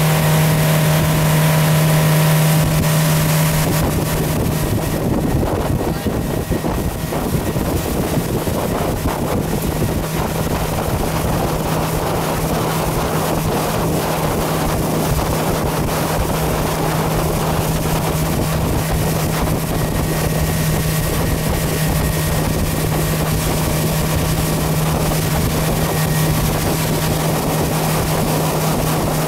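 Honda four-stroke outboard motor running steadily at full speed: an even engine drone under the rush of the boat's wake and wind.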